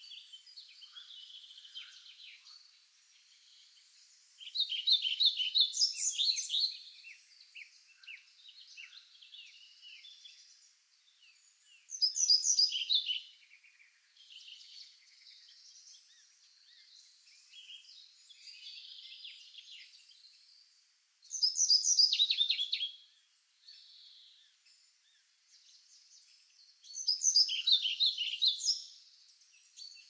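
Wild songbirds singing. One bird repeats a loud song phrase of about two seconds four times, roughly every seven to eight seconds, over softer chirping from other birds.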